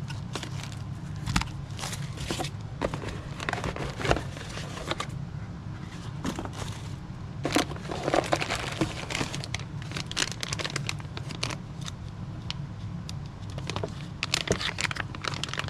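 Plastic packaging crinkling and rustling, with irregular clicks and knocks, as the parts of a backup camera kit are unwrapped and handled, over a steady low hum.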